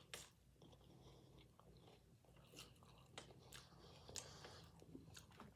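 Faint, close-up chewing: soft mouth clicks scattered irregularly as someone eats.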